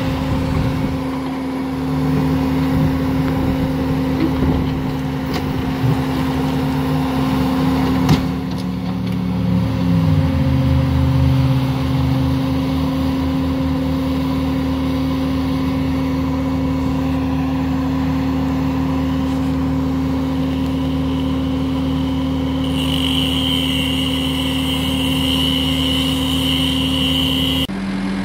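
Bobcat skid-steer loader's diesel engine running steadily nearby; its engine speed drops about eight to ten seconds in, then holds. A high steady whine joins it for the last few seconds.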